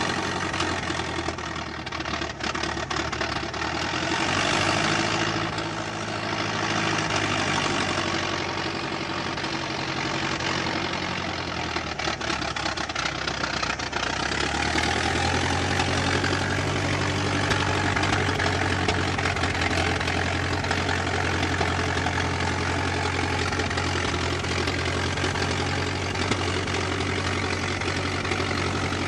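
Old car engine running, rising and easing a few times in the first half, then settling into a steady idle from about halfway through.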